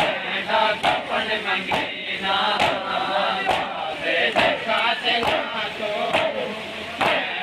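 Crowd of men chanting a mourning nauha together, with hands striking chests in unison in a steady matam rhythm, about one strike a second.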